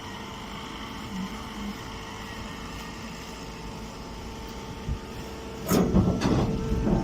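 Hydraulic hay baler running with a steady machine hum. Near the end it breaks into a louder, noisy stretch of clattering knocks.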